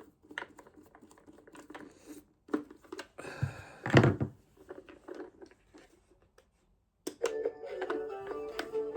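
A plastic toy car is handled with scattered clicks and taps, with a louder knock about four seconds in. About seven seconds in, the toy car's built-in electronic tune starts playing.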